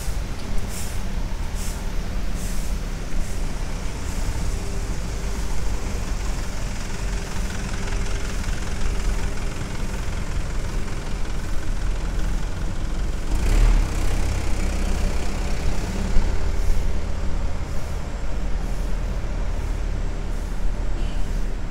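Street traffic on wet pavement, led by a box truck's engine running as it drives past, with a steady low rumble and hum. About halfway through comes a brief louder rush of noise with a low thump.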